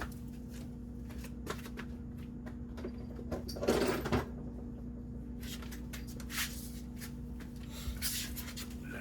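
Hand tools being handled while working on a car, with scattered light clicks and a brief rustling clatter about four seconds in, over a steady low hum.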